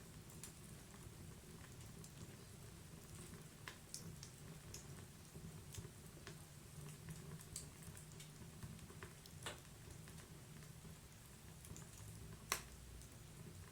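Wood fire burning in a fireplace: scattered sharp crackles and pops of the burning wood over a low, steady rumble of the flames, with one louder pop near the end.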